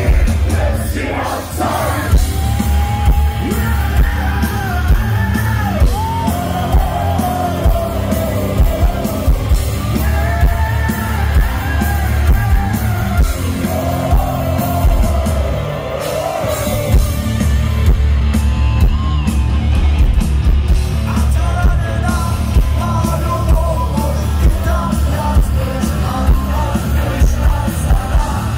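A heavy metal band playing live, heard loud from among the audience: drums, bass and electric guitars under sung vocals, with yells over the music.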